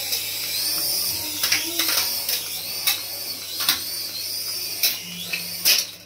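Small electric motors and twin rotors of a toy RC helicopter whining, the pitch rising and falling as the throttle changes. Several sharp clicks are spread through it.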